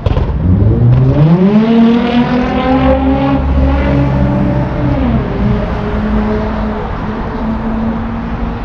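Car engine revving up steeply, holding high revs for a few seconds, then dropping to a lower steady speed about five seconds in.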